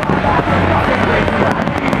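A large fireworks display firing continuously: many overlapping bangs and crackles over a steady rumble, with music mixed in.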